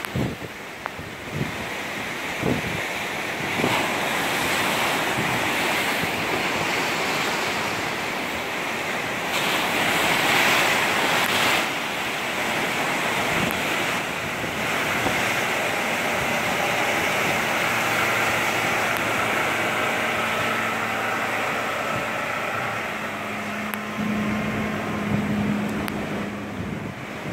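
Waves breaking and surging, with wind buffeting the microphone, and a louder wave crash about ten seconds in. In the second half, a small cabin boat's engine comes in as a steady low hum under the surf, strongest near the end.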